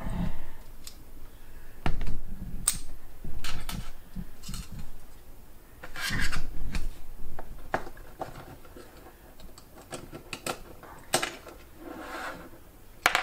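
Hard plastic and small metal parts of a Dexcom G6 sensor applicator clicking and clattering as it is pried apart with a small screwdriver and the pieces are set down on a desk. Irregular clicks and knocks, with the loudest cluster about six seconds in.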